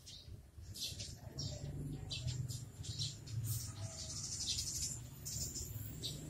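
Small birds chirping in short, repeated high calls, over a low steady background rumble.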